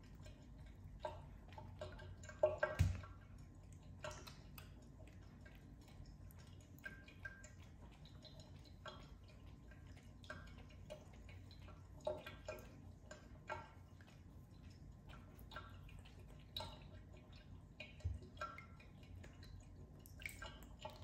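Small irregular drips and light splashes of bathwater as a cat dabs its paw into the tub and laps from it, one louder than the rest about three seconds in.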